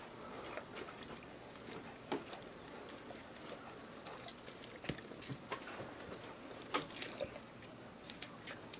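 Faint, scattered wet smacks and clicks of an adult Leonberger licking her puppy, with pebbles clicking as the dogs shift on gravel; a few sharper clicks stand out about two, five and seven seconds in.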